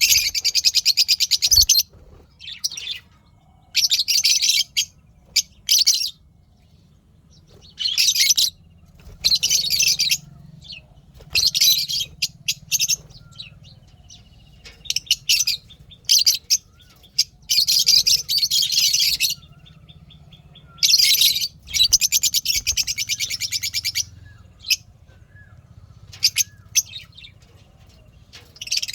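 Lovebirds chirping in repeated bursts of rapid, high-pitched chatter. Each burst lasts about half a second to two seconds, with short pauses between them.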